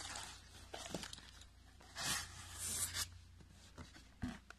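Cardboard shipping box being opened by hand: flaps and a paper sheet sliding and rustling, in two short bursts about two seconds in, with a light knock near the end.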